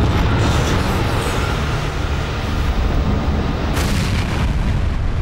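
Rolls-Royce Trent 900 turbofan running at full power on a test bed for a fan blade-off test: a loud, dense roar, with a surge of hiss about four seconds in.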